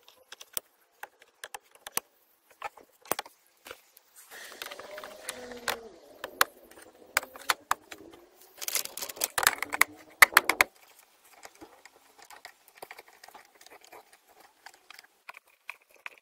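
Plastic interior trim and wiring of an Opel Corsa C being handled and pressed back into place under the dashboard: a run of sharp clicks, knocks and rattles, with louder stretches of handling noise about four seconds in and again around nine to ten seconds.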